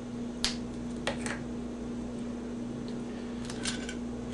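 A few short, light clicks and rustles of small parts being handled as Teflon tape is wrapped onto brass pipe-fitting threads, over a steady low background hum.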